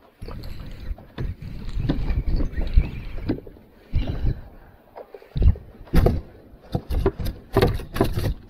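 Irregular knocks and thumps on a fishing kayak, coming faster and sharper in the second half, while a hooked fish is being fought.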